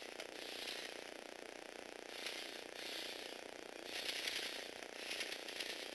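Small electric motors driving the plastic gear train and rubber-link tracks of a motorized Lego Technic crawler, whirring and clattering in five short bursts of about half a second each, with brief pauses between.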